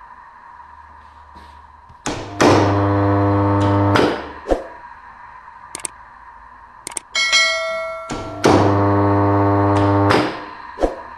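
Three-phase induction motor on a direct-on-line starter, switched on twice: each time the magnetic contactor clacks in and the motor runs with a loud, steady hum for about a second and a half, then clicks off. A brief high ringing tone sounds between the two runs.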